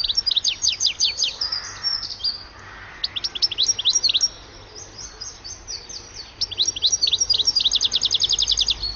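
European goldfinch singing: rapid, high twittering notes in three bursts separated by short pauses, the last the longest and fastest.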